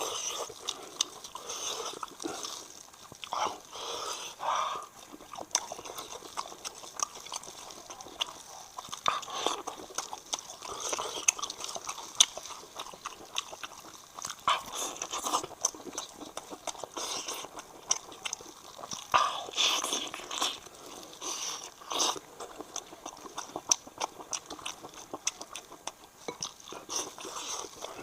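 Close-miked eating: wet chewing, biting and smacking of braised sheep's head meat, in irregular bursts with sharp mouth clicks.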